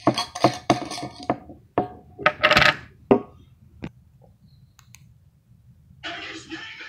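Sharp metallic clicks and clinks from the cap of a metal tin can being worked open, loudest about two and a half seconds in. Near the end, music from a television comes in.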